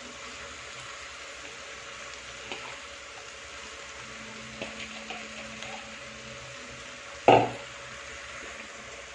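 Noodles and sauced vegetables sizzling steadily in a hot non-stick frying pan as boiled noodles are dropped in and spread by hand, with a few faint ticks. A single loud knock about seven seconds in.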